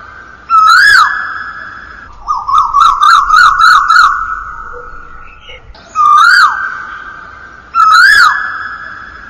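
Loud bird calls, each rising then falling in pitch, over a steady high tone. There are single calls about half a second in, at six seconds and near the end, and a fast run of about eight calls in the middle.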